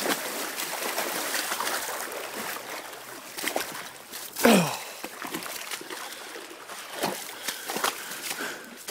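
Someone wading through a shallow creek: water sloshing and splashing around the legs with each step, with a few sharper splashes in the second half.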